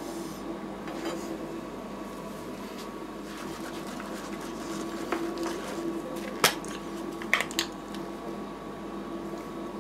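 Steady hum of a rolled ice cream machine's refrigeration unit running under its steel cold plate, with a sharp knock about six and a half seconds in and two more about a second later.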